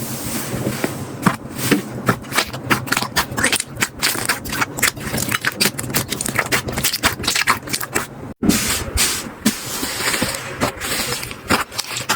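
Slime being pressed and squished by hand close to the microphone, giving many quick sticky pops and clicks. The sound breaks off for a moment about eight seconds in, then carries on.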